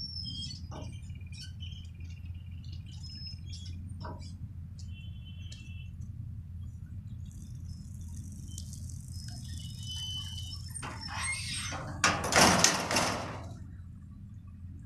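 Electric level-crossing boom barriers lowering to close the road, over a steady low hum and bird chirps; a loud rushing noise about twelve seconds in is the loudest sound.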